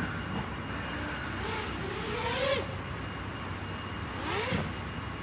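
FPV miniquad flying past, its motor whine rising in pitch twice as the throttle is punched, each time ending in a whoosh of props.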